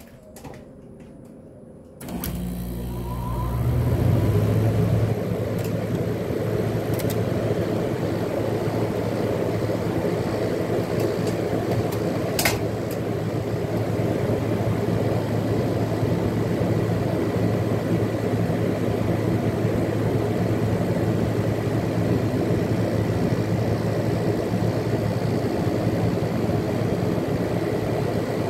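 Air conditioner starting up: a low hum starts suddenly about two seconds in, swells for a couple of seconds, then settles into a steady running hum with fan noise. There is a single sharp click about twelve seconds in.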